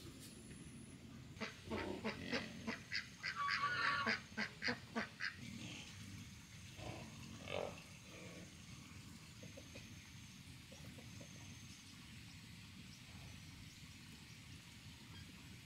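Domestic waterfowl calling: a quick run of loud honking calls, about three or four a second for some four seconds, starting a moment in, then a couple of single calls and a few fainter ones later.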